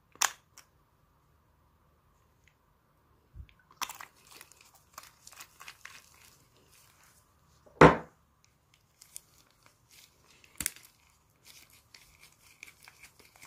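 Crinkling and crunching handling noise in a small room, with a sharp click near the start, a loud knock about eight seconds in, and another click a little later.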